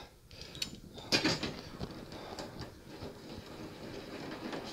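A hand ratchet clicking in short quick strokes as 12 mm bolts are run in, with a sharper metallic click about a second in.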